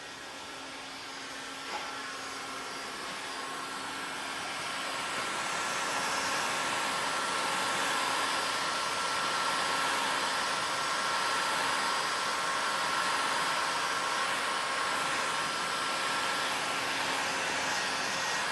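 Electric heat gun blowing steadily, a fan whir with a faint constant whine, getting a little louder about a quarter of the way in. Heat is the usual way to bring faded plastic back to a dark finish. A single light click comes early on.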